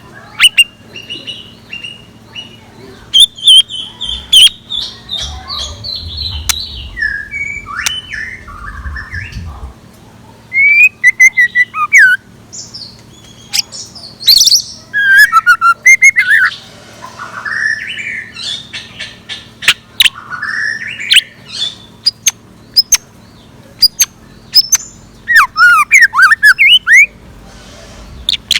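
Decoy scarlet minivet calling: a long run of sharp whistled chirps and quick down-slurred calls, with scattered sharp clicks and a steady low hum underneath.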